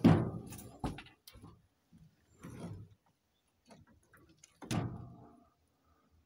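Thumps, knocks and scrapes of someone clambering out of a pickup truck bed under its canopy, the loudest thump right at the start. About three-quarters of the way through, the canopy's rear window hatch is swung down and shut with a sharp knock.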